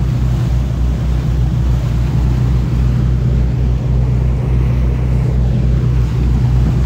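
Fishing boat's engine running steadily under way, a constant low drone, with the rush of the churning wake behind the stern.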